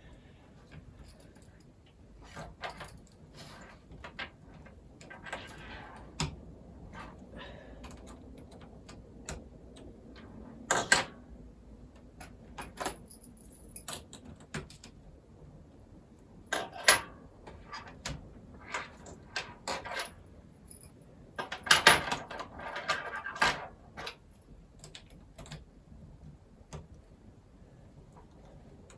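Small tools and laptop parts being handled: scattered clicks, taps and light rattles of plastic and metal, with louder clatters about 11 seconds in and again around 22 seconds in.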